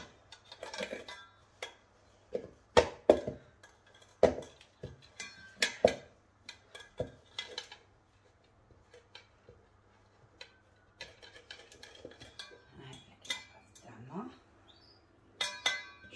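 Hands mixing wet bread dough in a stainless-steel mixing bowl: irregular knocks and clatter of the metal bowl, loudest in a cluster about three to six seconds in, with fainter scraping and clicks after.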